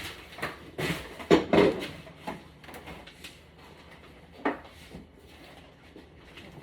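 Fridge magnets being handled and stuck onto a refrigerator door: a cluster of knocks and rustling about a second in, and a single clack about four and a half seconds in.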